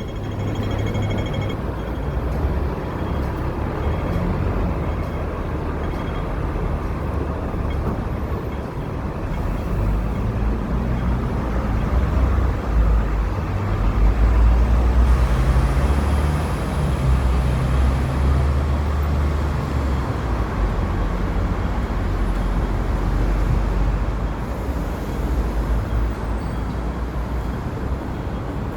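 Street traffic noise: a steady low rumble of passing vehicles that swells to its loudest about halfway through, then eases off.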